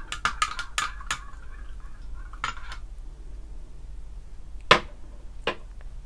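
Metal spoon stirring a taro milk drink in a glass measuring jug, clinking quickly against the glass at first, then two sharper clinks about a second apart near the end.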